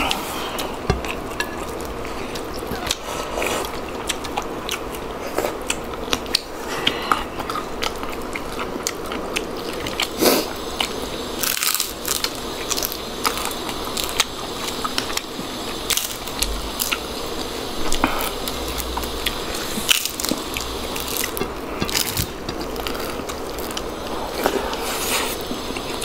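Close-up eating sounds of two people eating by hand: chewing and crunching of crisp food, with many short sharp clicks.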